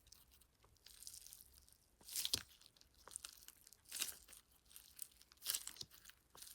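A squishy toy being squeezed close to the microphone for ASMR: irregular crackling, crinkly squeezes, about one or two a second.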